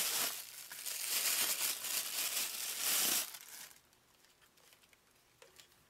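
Packaging crinkling and rustling as a camera body is unpacked from its box, stopping about three and a half seconds in.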